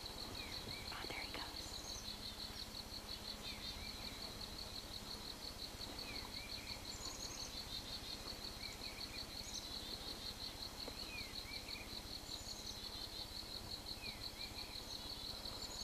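Outdoor ambience: a steady, rapidly pulsing high trill from calling insects or frogs, with short falling bird chirps repeating over it every second or two.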